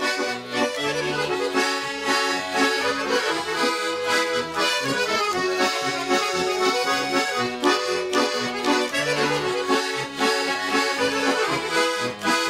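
Russian garmon (button accordion) playing an instrumental song introduction: a melody over steady, rhythmic bass-and-chord accompaniment.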